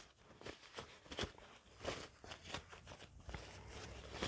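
Faint handling noises from cleaning a revolver cylinder: scattered light clicks and rustles at irregular intervals.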